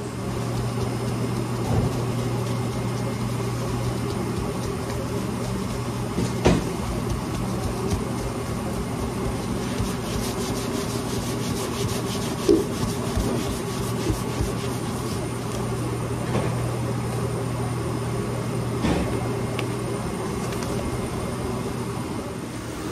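A steady low mechanical hum, with a few sharp knocks scattered through it.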